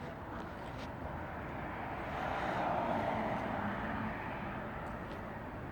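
A passing vehicle's steady noise over outdoor background, swelling about two seconds in, peaking and fading away again over the next two seconds.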